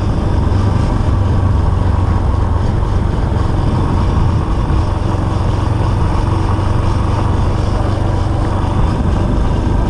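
Motorcycle engine running steadily while riding, with wind and road noise rushing over the camera microphone.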